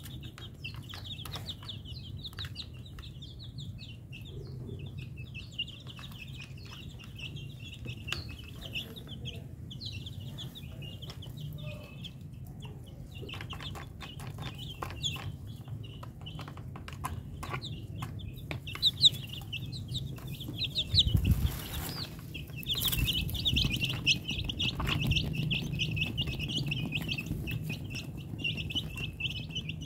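A flock of young chicks peeping continuously in rapid high chirps, with scattered light taps as they peck. A brief rush of noise comes about two-thirds of the way through.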